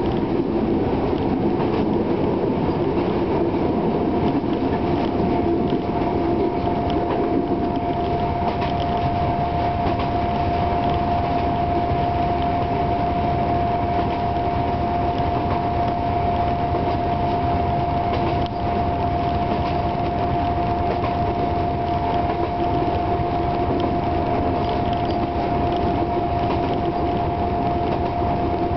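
Class 749 diesel locomotive running under way, heard from inside the cab: a steady mix of its six-cylinder diesel engine and wheels rolling on the track. A steady high whine comes in about three and a half seconds in and holds.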